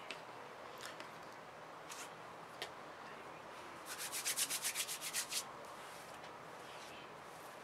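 A few short spritzes from a water spray bottle on hair, then hands rubbing briskly for about a second and a half, roughly eight strokes a second, about four seconds in.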